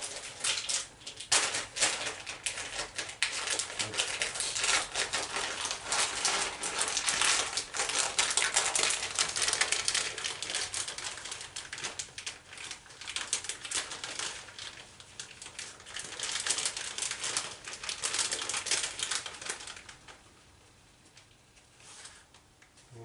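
Rapid, continuous clicking of a utensil beating eggs in a bowl, mixing the beaten whites and yolks together. It stops about 20 seconds in.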